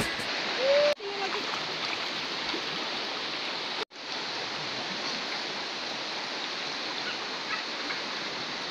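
Shallow river flowing over rocks: a steady rushing of water, broken off briefly twice, about a second in and near four seconds.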